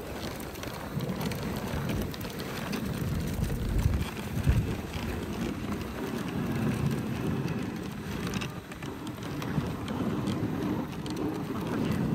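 Dog sled runners hissing and scraping over packed snow as the husky team pulls the sled along, with wind on the microphone and a couple of low thumps about four seconds in.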